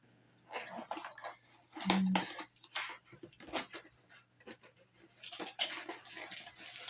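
Paper and cardboard rustling and scraping as a diamond painting kit's instruction sheet and canvas are slid out of their box, with a brief low-pitched sound about two seconds in.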